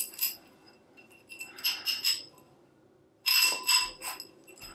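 Metal tensegrity tubes clinking and ringing against each other as they are handled, in a few short clusters, the loudest a little past three seconds in.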